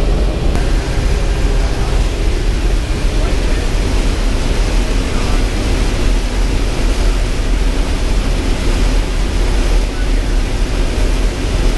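Steady, loud engine and airflow noise of a C-17 Globemaster III's four turbofan engines, heard inside the flight deck as the jet moves along the runway, deepest at the bottom.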